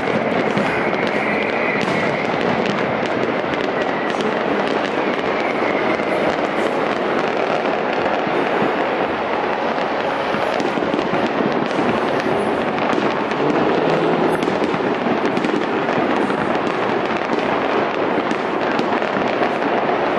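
Fireworks display: a steady, dense crackle of many overlapping small pops and bangs from bursting shells, with no single blast standing out.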